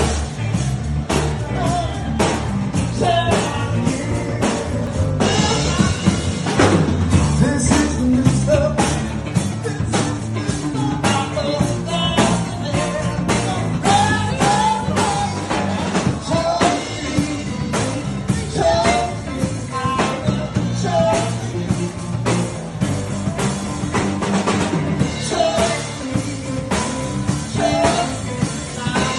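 Rock song with a singer over a drum kit keeping a steady beat.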